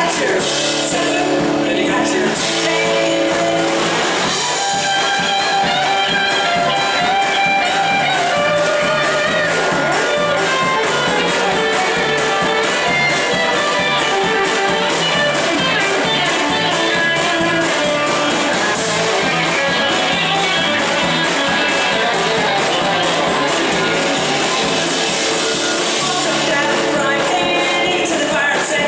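Live band playing a rock-tinged string-band song: a Telecaster-style electric guitar plays over acoustic guitar, bass and drums keeping a steady beat. Vocals come back in near the end.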